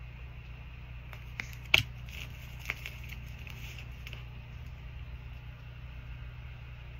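Tarot cards being handled: a few sharp clicks and soft rustles of the cards in the first half, the loudest click just under two seconds in, over a steady low hum.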